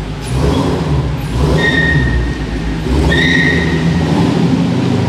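Car engine revving and accelerating as the black coupe drives off, its pitch rising and falling, with two short high squeals about a second and a half apart.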